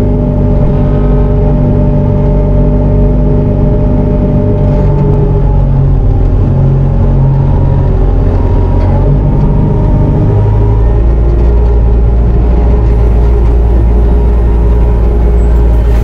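Bobcat T650 compact track loader's diesel engine running steadily as the machine works with pallet forks, its note shifting lower about ten seconds in.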